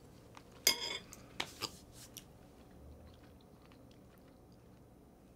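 Quiet chewing of a bite of meatloaf, with a brief clatter of a fork about a second in and a few soft clicks after it.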